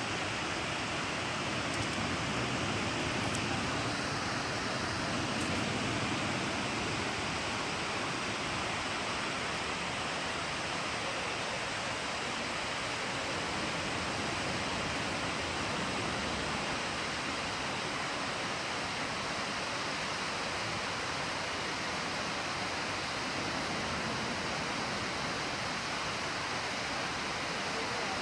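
A wide waterfall on the Genesee River rushing steadily, an even, unbroken wash of falling water.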